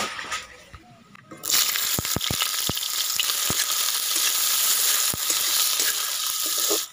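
Chopped onions sizzling as they fry in hot oil in a large metal karai while being stirred with a metal spatula, with a few sharp clicks. The sizzle starts loudly about a second and a half in and cuts off abruptly at the end.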